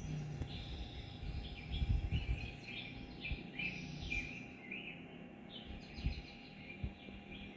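A quick run of short, high chirping calls, several a second, that fades out about six seconds in, over a low rumbling background with a few soft thumps.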